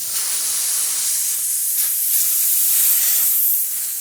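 Compressed air hissing steadily out of a tire's puncture hole while a plug-kit reamer is worked in and out of it.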